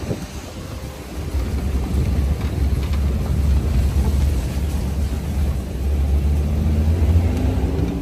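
Safari jeep driving on a forest track: steady engine and road rumble, with the engine note rising slightly near the end.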